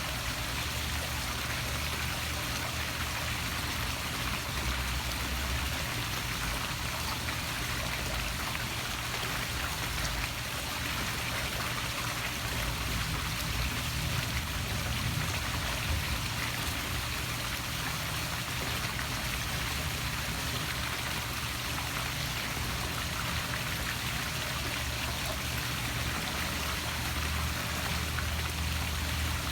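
Poolside waterfall splashing steadily into the pool water, with a low rumble underneath.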